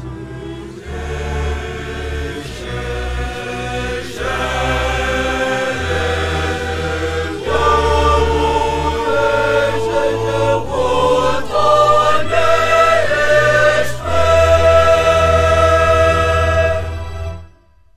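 School choir singing a sacred song over a low bass accompaniment, growing louder through the piece. The final chord dies away about a second before the end.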